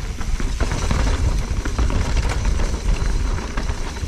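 Mountain bike descending a dirt forest trail at speed: wind rumbling on the microphone, with tyres rolling over dirt and the bike rattling and clicking over bumps.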